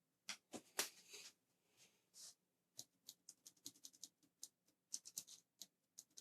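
Faint, irregular light clicks and taps, some fifteen in all, with a couple of brief rustles in the first two seconds. These are the sounds of small keyboard keycaps being handled.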